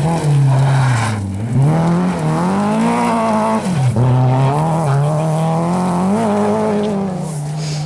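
Rally car engine running hard on a gravel stage. The revs drop sharply about a second in and again about four seconds in, climbing back each time, then hold fairly steady.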